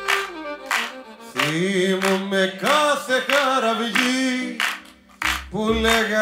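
Live band playing an instrumental passage between sung verses: a bending lead melody over bass and a steady drum beat.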